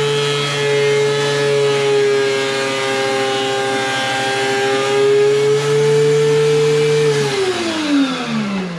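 Thickness planer running with a steady whine, its pitch sagging slightly for a few seconds, then switched off about seven seconds in and winding down with a falling whine.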